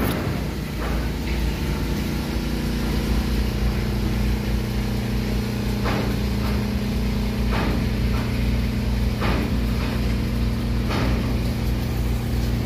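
Steady drone of an engine running without letting up, with a few short sharp knocks every second or two from about six seconds in.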